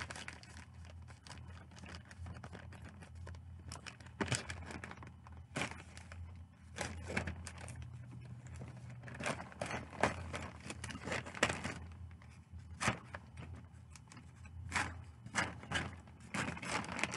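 Scissors snipping through a plastic poly mailer bag while the bag is handled, the plastic crinkling. Irregular crackles and snips come in scattered clusters.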